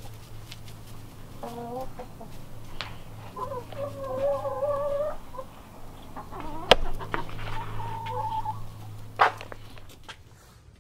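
Domestic hens clucking and calling, with one drawn-out, wavering call about four seconds in. A sharp click a little before seven seconds, and another near nine seconds.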